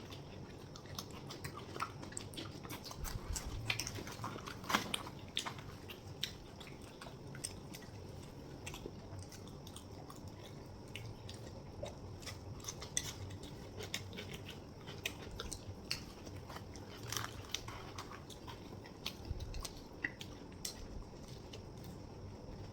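People chewing and biting into chhole bhature, fried bhatura bread with spicy chickpea curry, with many small wet clicks and crackles of eating scattered throughout.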